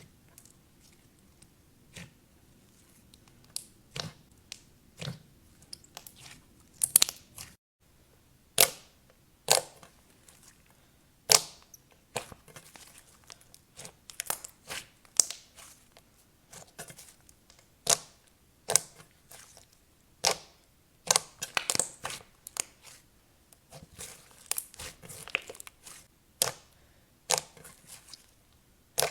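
Clay slime being squeezed, poked and stretched by hand, making irregular sharp clicking and crackling pops as air pockets burst.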